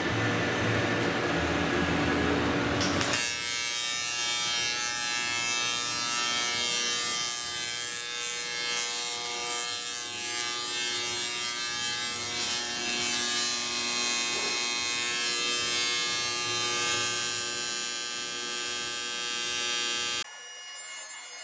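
Welding arc on aluminium tube frame: a steady electric buzz with hiss that starts about three seconds in and cuts off near the end. Before it, a rushing shop noise with a low hum.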